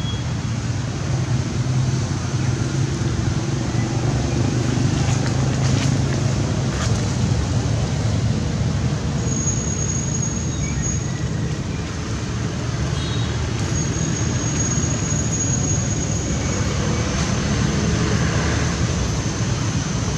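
Steady low rumble of outdoor traffic noise, with faint high thin tones coming and going.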